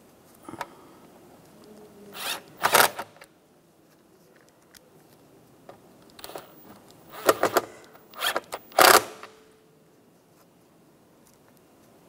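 A bit driver runs the screws of the glove box latch down tight in short bursts: two close together about two to three seconds in, then three more between about seven and nine seconds.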